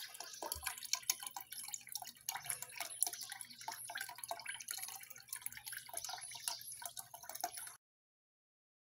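Water from a small homemade tiered fountain, circulated by a submerged aquarium pump, falling in thin streams from a rim into the basin below: a dense, steady patter of splashes and drips over a faint low hum. It cuts off suddenly near the end.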